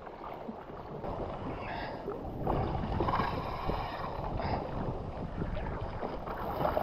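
Wind buffeting the camera microphone over choppy open sea, with water washing around the jet ski; it grows louder about two and a half seconds in.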